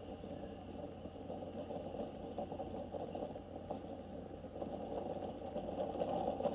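Steam-hauled train of coaches working away along the line: a steady rumble of locomotive and carriages that grows gradually louder, heard through a webcam microphone.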